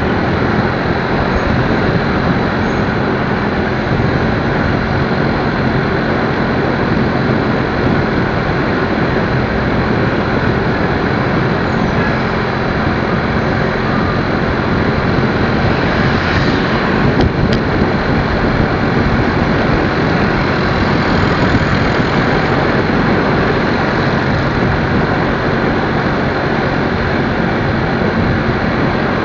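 Steady wind and road noise over the microphone while riding, with a motorcycle engine running underneath.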